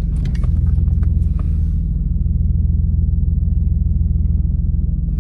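Infiniti G37's 3.7-litre V6 running steadily at a constant pitch, with the exhaust leaking at the flex pipe and the mid pipe.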